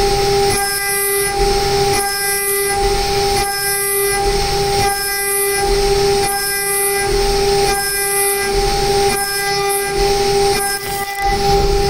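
CNC mill spindle at 24,000 rpm driving a 6 mm single-flute end mill through an aluminium block on an adaptive toolpath. A steady high tone runs under a hissing cut that swells and eases in an even rhythm, a little faster than once a second, as the tool moves in and out of the cut.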